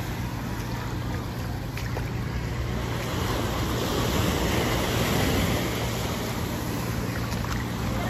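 Sea surf washing onto a sandy beach: a steady wash that swells a little about halfway through.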